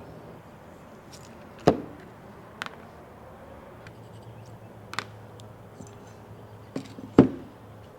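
A few sharp knocks from hand work on the disassembled hydraulic lift cylinder's parts: two louder ones, about a second and a half in and near the end, with lighter taps between.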